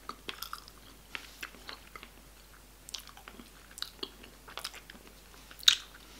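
A person chewing a piece of Finnish licorice: soft, wet mouth clicks, with one louder click near the end.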